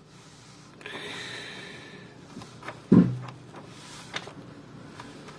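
Paper book pages being leafed through by hand: a soft rustle of paper about a second in, a few light handling clicks, and one short, louder low sound about three seconds in.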